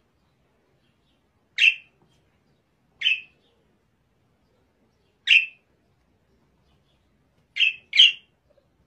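Budgerigar giving five short chirps with pauses between them, the last two in quick succession near the end.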